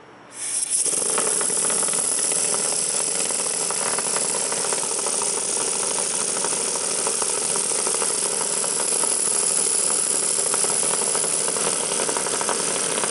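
Small single-cylinder oscillating (wobbler) model steam engine running fast on compressed air at about 40 PSI. It starts about half a second in and runs steadily with a rapid rattle of exhaust puffs.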